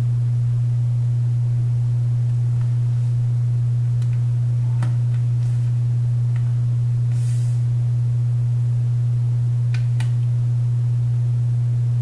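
A loud steady low electrical hum on the recording. A few faint light clicks come through it, from small screws being driven into a MacBook Air's aluminium bottom case.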